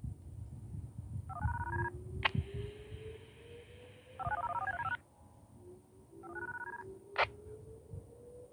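DTMF siren activation tones heard through a radio scanner: three short groups of stepped beeps, with squelch clicks and a stretch of radio hiss between them. Underneath, a distant outdoor warning siren sounds a whoop signal, its pitch rising slowly twice, over low wind rumble.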